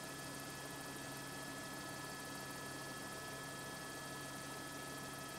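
Steady hum with several constant tones, high and low: helicopter cabin noise carried faintly on the crew's intercom audio.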